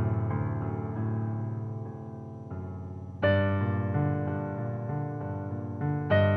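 Slow piano music: a held chord slowly fades, then a new chord is struck about three seconds in and rings on, with another struck near the end.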